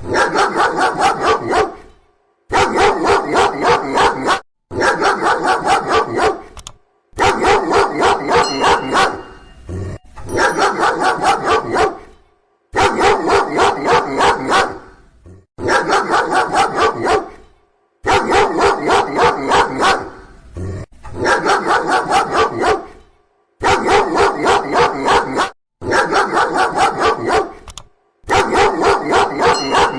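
A dog barking loudly in rapid runs of about four barks a second, each run lasting about two seconds, with short pauses between runs.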